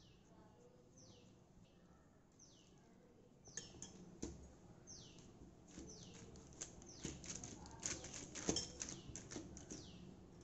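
Hands patting and pressing a stuffed dough ball flat on a plastic sheet, the plastic crackling and clicking from about a third of the way in, loudest near the end. A bird repeats a short falling chirp about once a second throughout.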